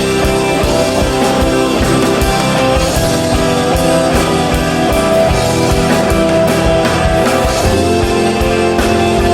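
Rock band music: electric guitars playing sustained chords over a steady drum beat, with no singing.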